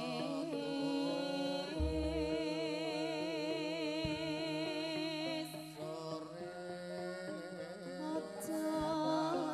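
Javanese gamelan music, with a female sindhen singing long notes with vibrato over the ensemble's held tones. A deep low stroke from the drum or gong comes about two seconds in.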